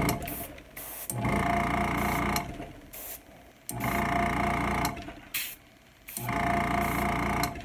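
Small airbrush compressor motor humming together with air hissing through the airbrush, running in bursts of about a second and stopping in between: three times, after cutting off right at the start.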